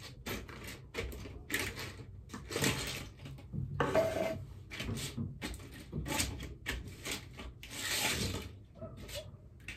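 Chicken wire mesh being handled and rolled on a plastic-covered workbench: irregular rattling and rustling of the thin wire, a few scrapes louder than the rest.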